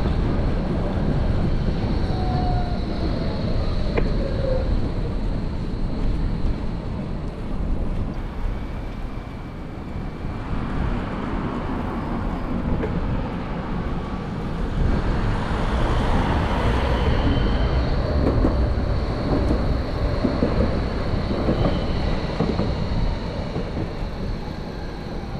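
Steady rumble of a bicycle riding through city streets, with road and traffic noise, briefly getting louder about two-thirds of the way through.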